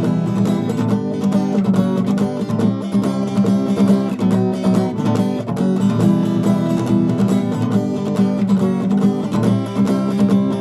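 Acoustic guitar strummed in a steady rhythm, an instrumental break between sung verses of a song.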